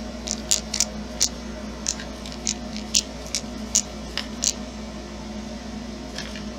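About a dozen small, sharp, irregular clicks and taps from hands handling an RC crawler's brushed motor and its mounting screws in the chassis, stopping a little past halfway, over a steady low hum.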